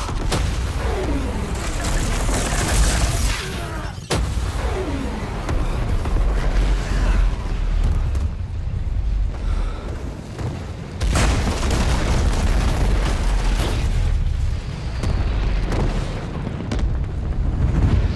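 Film sound mix of a wildfire explosion: blasts and a heavy, continuous low rumble of fire, with orchestral music. Sudden new blasts hit about 4 and 11 seconds in.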